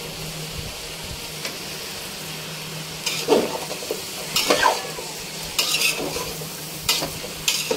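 Long steel spatula stirring diced vegetables and lentils in an aluminium pot, scraping and clinking against the pot about five times in the second half, over a steady hiss.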